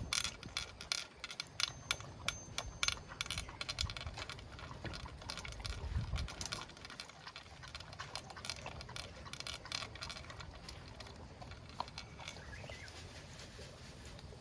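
A pet eating its breakfast: quick, irregular crunching and clicking of food, dense at first and thinning out in the second half.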